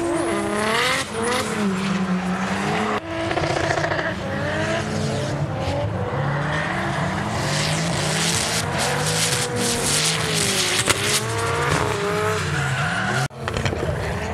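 Drift cars' engines revving up and down again and again, with tyres squealing and screeching as the cars slide sideways through the bends.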